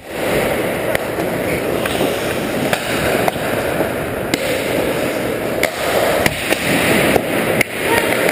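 Ice hockey play on the rink: skates scraping and carving across the ice in a steady rasp, with several sharp clacks of sticks and puck scattered throughout.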